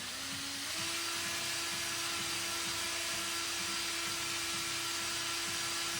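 Electric drill running steadily, its motor stepping up in speed under a second in, drilling holes through the steel panel with a steady whine.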